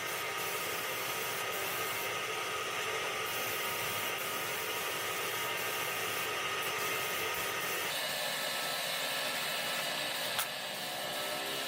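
Steady hiss of compressed air from a paint spray gun. The sound changes abruptly about eight seconds in, and there is a single short click just after ten seconds.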